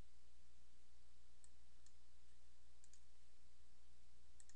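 A few faint computer mouse clicks, some in quick pairs, over a steady low electrical hum.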